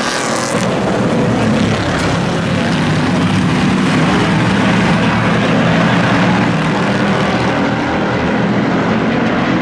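A pack of small pickup race trucks running at speed around an oval, their engines blending into a loud, steady mix of engine noise.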